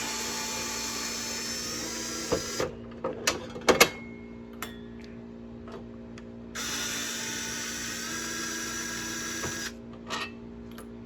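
Power screwdriver running in two spells of about three seconds each, backing out the case screws of a scoring machine, with a few clicks of handling between them.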